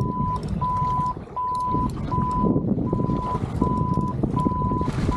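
An electronic alarm beeping: a single steady high tone repeated in even beeps about every three-quarters of a second, over a loud low rumbling noise.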